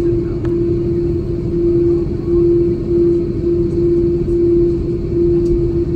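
Cabin noise of an Airbus A330-300 taxiing with its GE CF6-80 engines at idle: a steady low rumble with a constant hum that swells and dips slightly.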